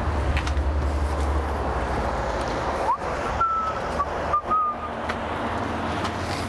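A motor vehicle engine running with a steady low rumble over outdoor noise, weaker from about halfway. A few short, thin whistle-like tones come in around the middle.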